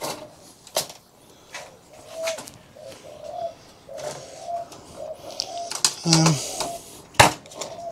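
A bird cooing, a run of short low notes repeated from about two seconds in, over sharp knocks and clanks from hand dismantling of a scrap display monitor, the loudest near the end.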